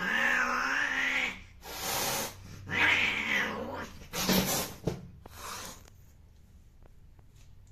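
Female cat yowling while being mated: a long wavering cry, a harsh hissing burst, a second cry, then more hissing bursts about four to five seconds in as the pair break apart. The sounds fade to faint scuffling over the last couple of seconds.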